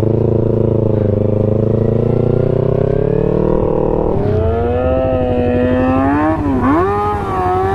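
Yamaha MT25's 250 cc parallel-twin engine running as the bike is ridden, its pitch climbing slowly. About four seconds in the note changes, then rises and falls as the throttle is opened and closed, with a marked dip near the end.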